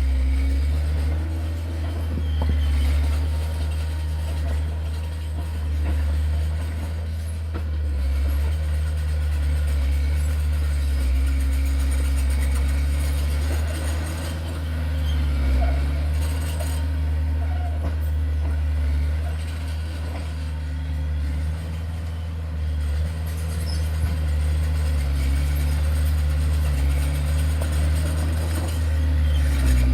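Heavy construction machine's diesel engine running steadily with a low drone, its pitch dipping and rising a little now and then as the load changes.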